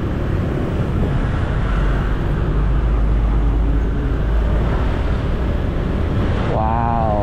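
Steady road and engine rumble of a motorbike ride through dense traffic, with a deep low rumble that swells for a couple of seconds in the middle.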